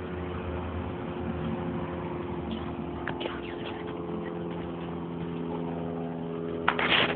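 A steady motor hum with several even pitched tones, and a short, loud clatter or rustle about seven seconds in.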